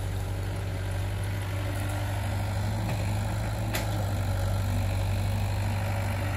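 Hitachi Zaxis 70 mini excavator's diesel engine running steadily with a low hum, with one sharp click a little under four seconds in.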